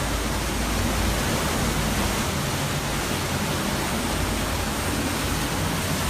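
Hurricane-force wind of about 160 to 170 mph with driving rain: a steady, loud rush with an unsteady rumble at the low end.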